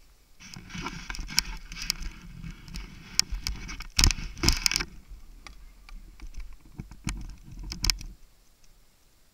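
Skis sliding and scraping over snow, with frequent sharp clicks and knocks. It starts about half a second in, is loudest in the middle, and stops a little after eight seconds.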